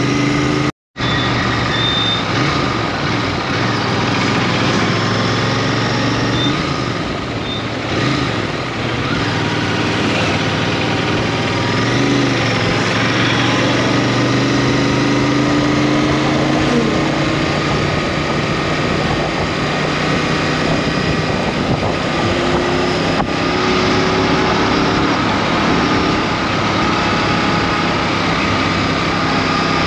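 Royal Enfield Interceptor 650's parallel-twin engine running steadily on the move, with a constant rush of road noise. The sound cuts out completely for a moment about a second in, and the engine pitch shifts up and down for several seconds a little later.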